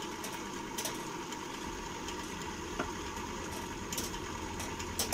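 Steady background machine hum with a held mid tone and a low drone that grows stronger about a second and a half in, with a few faint clicks.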